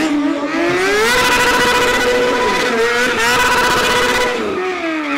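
Kawasaki sport motorcycle engine revved hard and held at high revs twice, with a dip in between, before falling away near the end. The rear tyre spins and smokes in a stunt burnout over the engine sound.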